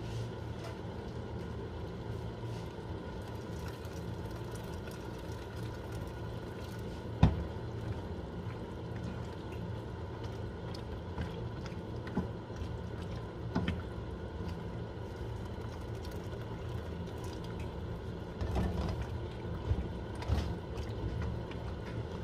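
Water being added to a pan of farfalle in cream sauce and stirred with a wooden spatula, over a steady low hum. A few knocks of the spatula against the pan, the sharpest about seven seconds in.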